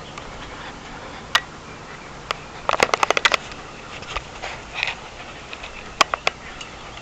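Miniature schnauzers' claws clicking and tapping on wooden deck boards: a few single clicks, a quick run of them about three seconds in, and another short group about six seconds in.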